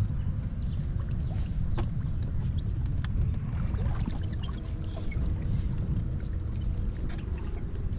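Steady low rumble picked up by a camera on a kayak, with scattered small clicks and knocks from the kayak and fishing tackle being handled while a fish pulls on the bent rod.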